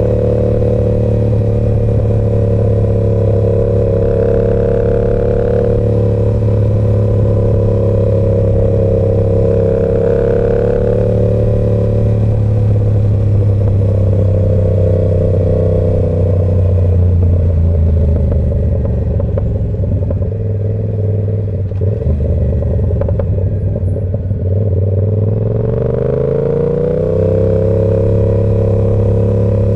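Yamaha R7 parallel-twin engine with an SC-Project exhaust, heard while riding. It runs at steady revs, drops lower about twelve seconds in and runs rougher for a while, then climbs in pitch as it accelerates near the end and settles back into a steady cruise.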